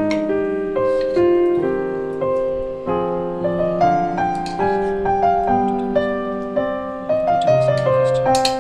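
Background piano music, a slow melody of single notes over held chords.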